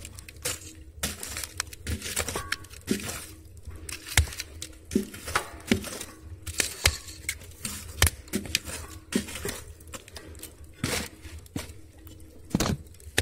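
Wood fire crackling in the firebox of a wood-burning stove while a metal poker knocks and scrapes among the burning logs, giving many irregular sharp clicks and knocks over a low steady rumble.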